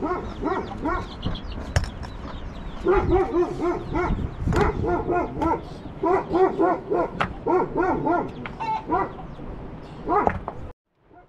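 A dog yelping and whining in quick runs of short cries, with a few sharp knocks of stones being handled. The sound cuts off abruptly near the end.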